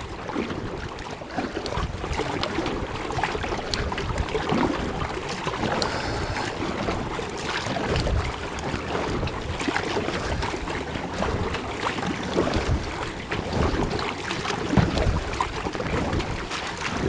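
Kayak paddle strokes splashing in sea water, with water lapping at the hull and wind buffeting the microphone.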